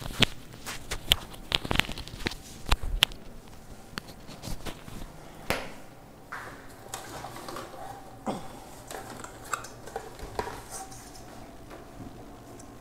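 Irregular clicks, taps and knocks of equipment being handled close to the microphone, thick in the first six seconds and sparser after.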